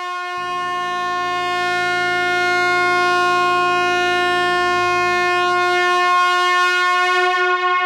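Truck air horn sounding one long, steady blast on a single held note, swelling a little over the first few seconds. A deeper tone joins underneath about half a second in.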